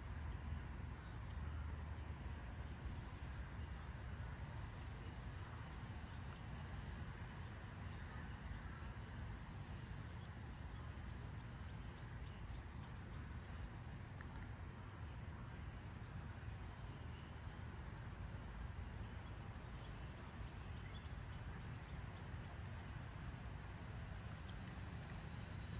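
Faint early-morning outdoor ambience: a steady low rumble under scattered short, high chirps of insects and birds.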